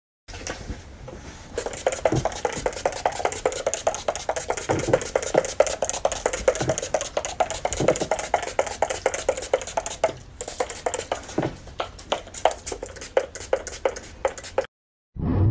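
Body-spray pump bottle spritzed over and over in quick succession, several short sprays a second, with a brief pause about ten seconds in.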